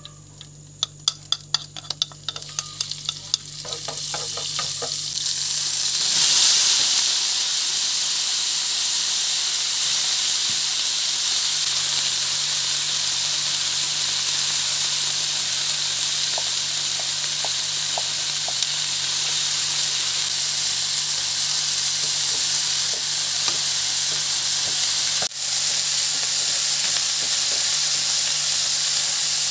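Hot oil crackling and popping in a frying pan, then a loud, steady sizzle from about six seconds in as water spinach is stir-fried in it.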